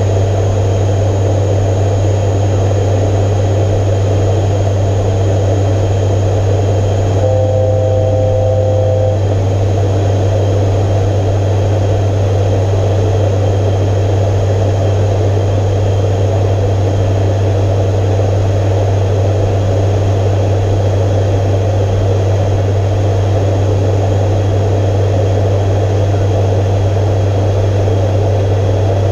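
Steady drone of an ATR 72-500's two PW127F turboprops and six-blade propellers heard in the cockpit in flight, dominated by a deep, even propeller hum. About seven seconds in, a brief steady electronic tone of several notes sounds for about two seconds.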